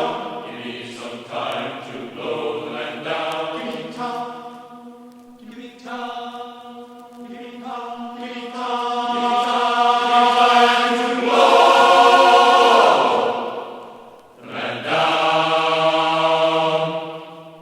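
Vocal music: several voices chanting in long held notes that shift every second or two, swelling in the middle and fading out near the end.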